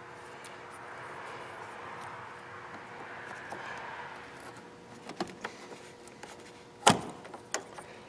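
Hands handling the intake air temperature sensor's wiring harness and plastic electrical connector: a soft rustling, then a few plastic clicks and knocks, the sharpest about seven seconds in.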